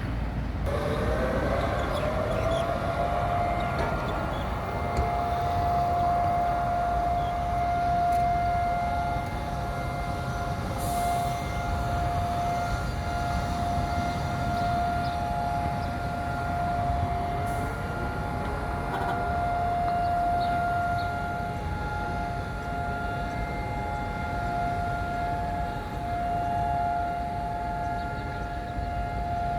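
Civil-defence air-raid siren sounding the two-minute remembrance alert for Holocaust Remembrance Day: it winds up, rising in pitch over the first few seconds, then holds one steady tone, the unvarying note used in Israel for memorial sirens rather than the rising-and-falling attack warning. A low background rumble lies beneath it.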